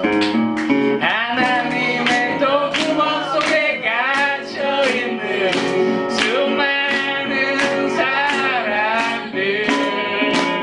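Acoustic guitars strummed in a steady rhythm, with a man singing over them.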